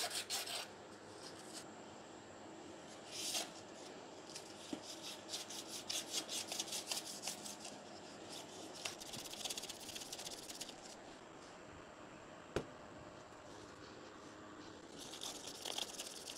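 Fine abrasive paper rubbed back and forth by hand on a pool pump motor's 5/8-inch steel shaft, scouring off rust before the new shaft seal goes on. The scraping comes in several spells of quick strokes, about four or five a second, with quieter pauses between them and one sharp click about twelve seconds in.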